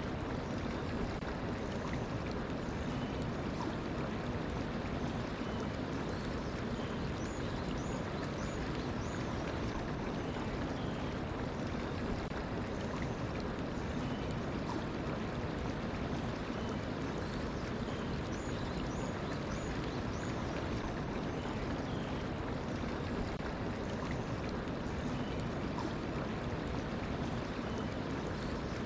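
Mountain stream flowing steadily. A small bird sings short runs of four or five high chirps about every ten seconds.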